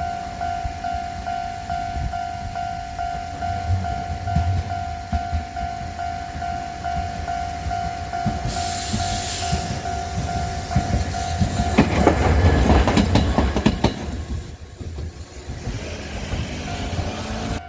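Level crossing alarm ringing its repeating electronic 'kan-kan' bell, then Kagoshima City Tram car 9513 rolls through over the rails. The tram is loudest about twelve seconds in, and the bell stops as it passes. A short hiss comes about eight seconds in.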